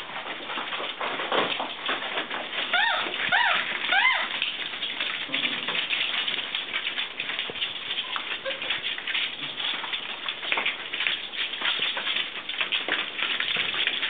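Border Collie puppies scrabbling and moving about on a hard floor, a constant busy clicking and scuffling. About three seconds in, a puppy gives three short whimpers, each rising then falling in pitch.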